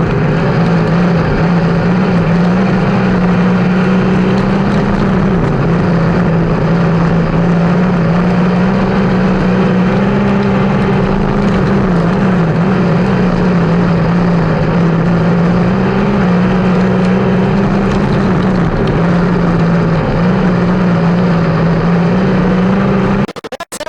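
360 sprint car V8 engine running at high revs during a race, a steady loud note that sags briefly in pitch every several seconds, then cuts off abruptly near the end.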